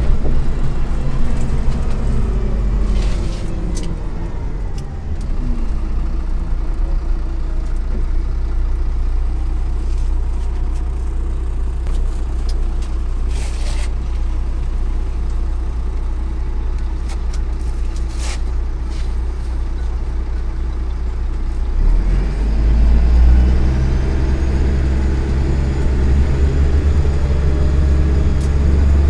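MAZ-103 city bus heard from inside the cabin while under way: the engine drones deep and steady, its pitch sinking in the first few seconds and rising again about two-thirds of the way through as the bus picks up speed. A few brief clicks or rattles sound along the way.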